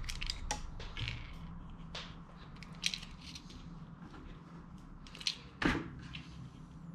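Hard plastic toy rifle parts being handled and fitted together: scattered light clicks and knocks, with a sharper knock near the end.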